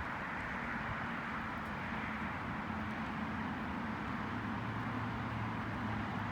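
Steady outdoor background noise with a faint low hum underneath, even throughout.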